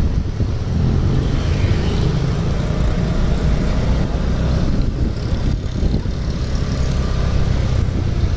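Steady road-vehicle noise on the move: engine and road rumble with wind buffeting the microphone, and no horn standing out.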